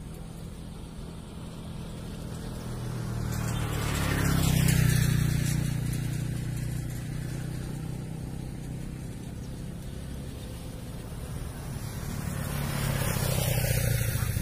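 Two road vehicles driving past one after the other: each engine-and-tyre sound swells up and fades away, the first loudest about five seconds in, the second near the end.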